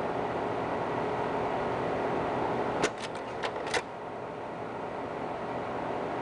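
Slide projector running with its steady fan noise, and a quick run of about five mechanical clicks and clacks about three seconds in as the slide changer advances to the next slide.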